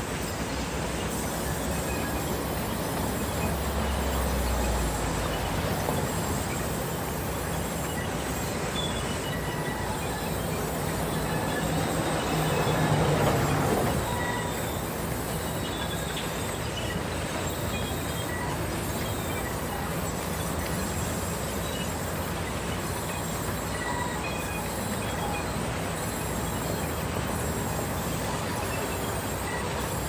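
Large industrial band saw in a sawmill cutting through a log, giving a steady, dense machine noise that swells louder about halfway through.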